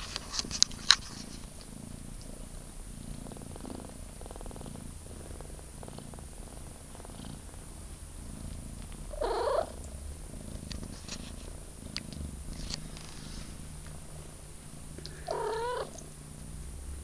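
Three-week-old calico kitten mewing twice, two short wavering cries about six seconds apart, over a low steady purr. A few sharp clicks in the first second.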